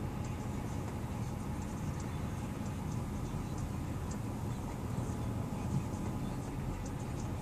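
Steady low drone of the 2009 Ford F-350's 6.4-litre Power Stroke V8 diesel, heard from inside the cab.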